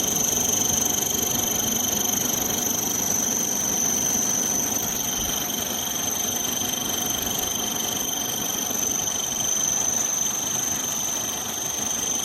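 Amazon Basics 5000-BTU window air conditioner running on high cool: a steady rush of fan air with a thin high whine on top.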